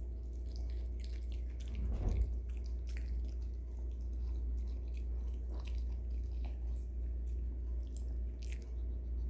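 A Maltese dog biting and chewing raw cucumber pieces, with irregular wet crunches and a louder bite about two seconds in, over a steady low hum.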